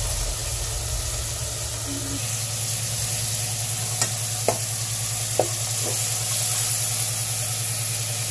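Raw chicken pieces sizzling as they sear in rendered chicken fat in a pot, stirred with a ladle. Four short knocks of the ladle against the pot come about halfway through.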